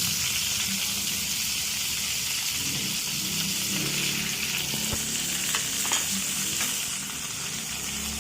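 Margarine sizzling in a hot frying pan, a steady hiss with a few faint pops around five to six seconds in.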